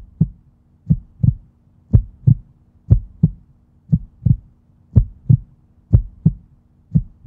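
Heartbeat sound effect: paired lub-dub thumps about once a second over a faint steady low drone.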